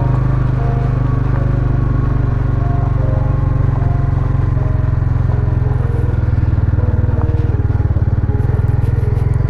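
Motorcycle engine running steadily while ridden, heard from the bike itself, with a fast low pulsing that grows stronger in the second half.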